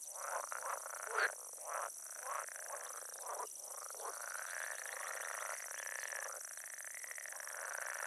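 Frogs calling over and over in a chorus, with short calls that rise and fall in pitch and overlap, the loudest about a second in. A steady high-pitched hiss runs underneath.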